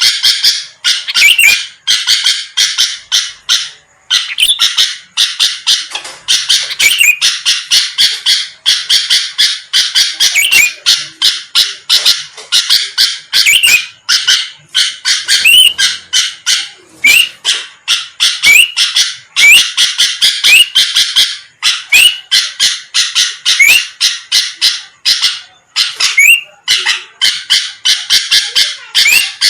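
Sooty-headed bulbul (kutilang) singing vigorously, as a lure song: fast, harsh chattering phrases in quick succession with a few short rising whistles, broken by brief pauses about four seconds in and again near the end.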